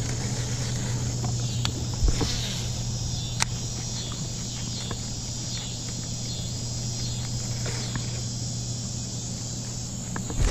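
A steady low hum with insects chirping faintly behind it, and a few sharp clicks at about two and three and a half seconds.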